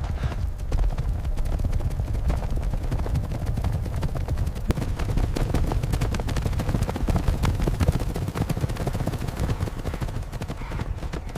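Many hooves pounding on hard ground: a dense, rapid clatter of thuds over a steady low rumble.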